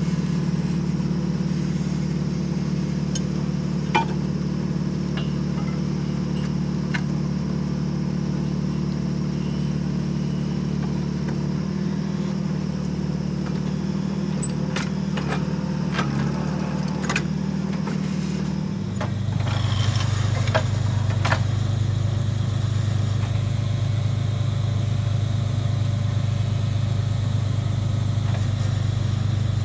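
Diesel engine of a truck-mounted water-well drilling rig running steadily under load, with a few sharp knocks. About two-thirds of the way through, its note drops lower and gets slightly louder.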